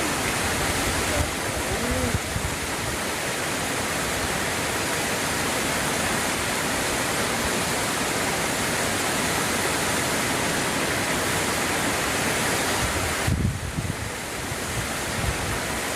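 Steady rush of flowing water. About 13 seconds in it drops away and low gusts of wind buffet the microphone.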